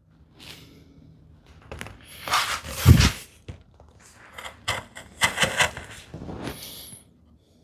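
Steel chisel paring wood by hand in short, irregular slicing strokes, with one solid knock about three seconds in.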